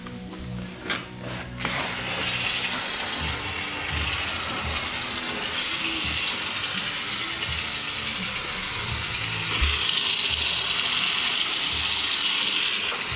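Aerosol can of rust treater spraying through a long extension hose and wand into the front panel cavity: a steady hiss that starts a couple of seconds in and cuts off suddenly at the end.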